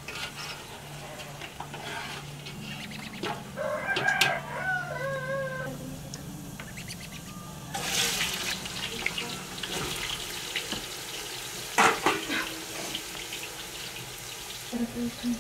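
A rooster crows once, a wavering call about four seconds in. About eight seconds in, a batch of raw cut potatoes is tipped into hot oil in a pot and the oil starts sizzling loudly, with a sharp knock near the end.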